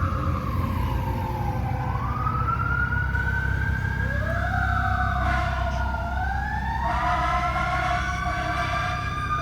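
At least two emergency-vehicle sirens wailing at once, their pitches slowly rising and falling out of step with each other, over a steady low rumble. In the last couple of seconds one siren holds a steady pitch.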